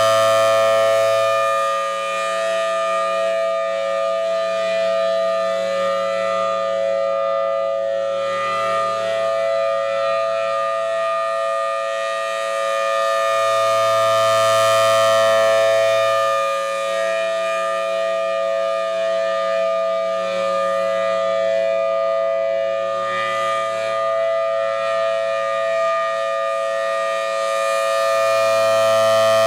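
Federal Signal Thunderbolt 1000TB outdoor warning siren sounding a steady tone for a test. The pitch holds level while the loudness swells and fades about every 14 to 15 seconds as the rotating siren head sweeps toward and away.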